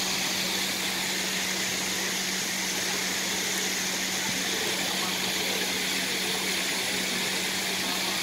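Steady mechanical hum under a constant even hiss, unchanging throughout.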